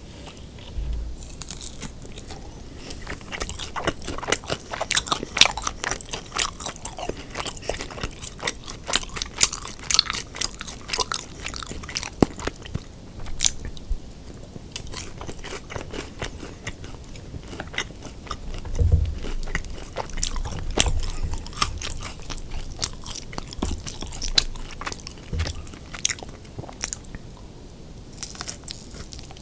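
Close-miked chewing and crunching of food, a steady run of crisp crackles: eating crispy fried sweet and sour pork and fried rice.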